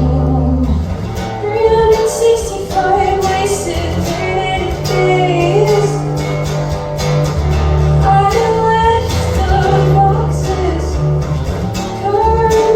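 A singer performing a song live over instrumental accompaniment, the sung melody gliding between notes above sustained low bass notes.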